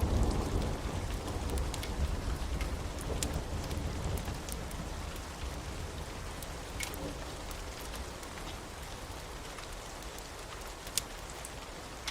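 Steady rain of a storm ambience, with a low rumble of thunder at the start that fades away over several seconds, and a few scattered sharp drip ticks.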